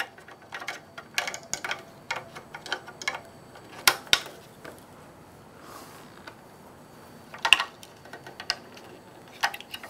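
Small irregular plastic clicks and taps of batteries being fitted into the battery compartment of a gooseneck LED work lamp, with a pair of sharper clicks about four seconds in and a few more later on.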